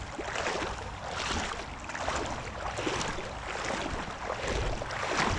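Wading through a shallow creek: legs sloshing and splashing through the water at a steady walking pace, about one step a second.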